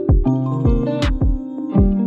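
Background music with a steady beat: deep kick-drum thumps about every half second and a sharp snare-like hit about a second in, over sustained keyboard chords.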